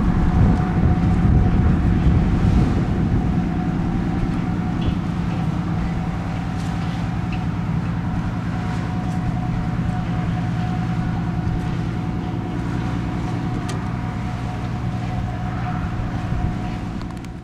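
A boat's diesel engine running steadily, a low even drone with a thin steady whine above it.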